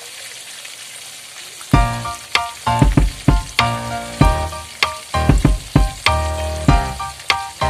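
Potato chunks sizzling as they shallow-fry in hot oil in a wok. About two seconds in, louder background music of plucked or struck notes comes in over the frying.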